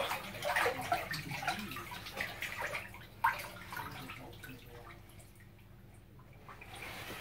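Bathwater sloshing and dripping as a child moves her body and hands through a filled bathtub. Small splashes come thick at first and die down toward the end.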